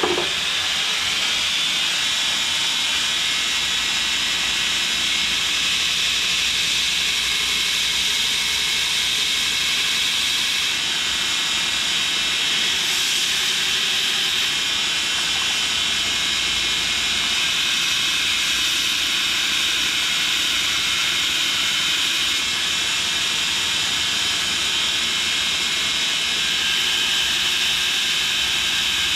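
Belt grinder running a 240-grit compact-grain abrasive belt, with a steel knife blade held against its small contact wheel to grind the bevels: a loud, steady, high hiss of abrasive on steel over the hum of the machine.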